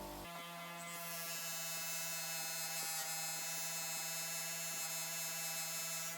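Small electric rotary polishing tool, Dremel-type, running at a steady speed with an even whine, and a high hiss joining about a second in as it polishes.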